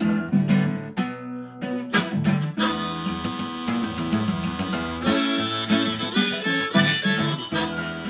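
Harmonica played in a neck rack over a strummed Takamine acoustic guitar in a blues instrumental break. The strumming carries the first couple of seconds, and the harmonica comes in with held notes about two and a half seconds in.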